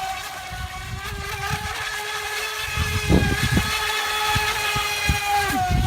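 Electric motor of an FT012 remote-control speed boat running flat out as a steady high whine with overtones. The whine dips in pitch briefly near the end.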